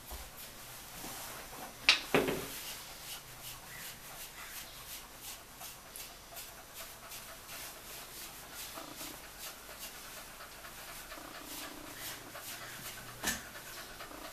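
American cocker spaniel panting, with two sharp clicks about two seconds in and another near the end.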